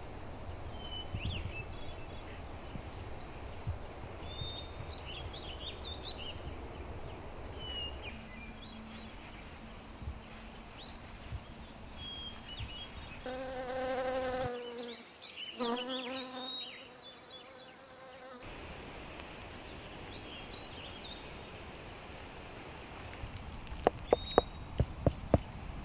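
Birds chirp in the forest background while a fly buzzes past for a few seconds in the middle. Near the end there is a quick run of sharp clicks.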